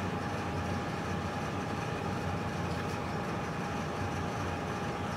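Steady background hum and hiss with a thin, steady whine over it; nothing starts or stops.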